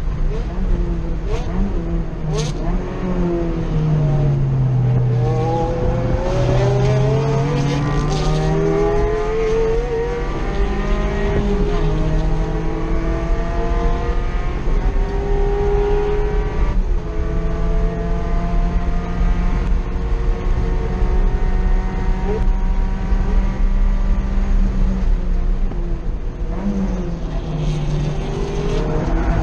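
A 2.5-litre four-cylinder engine in an NC Mazda Miata at race pace, heard from inside the stripped cabin. The revs climb and fall again and again through gear changes and braking, with a sharp drop at each shift.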